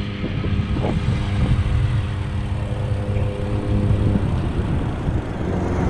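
Wind and road rumble on a camera riding along on a moving bicycle. Over it runs a steady mechanical hum that stops about four seconds in.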